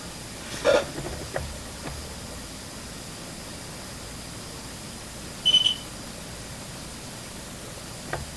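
A single short, high electronic beep from a ghost-hunting gadget going off, about five and a half seconds in, over a steady hiss. Before it, about a second in, there is a knock followed by a few small clicks, and there is another click near the end.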